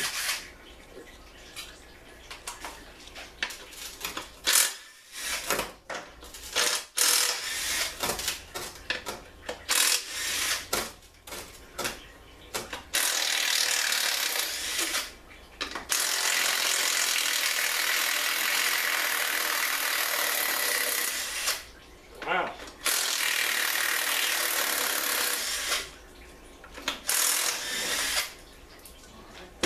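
Clicks and clanks of tools working on a Ford C6 transmission case, then a power tool running in three long steady bursts of several seconds each.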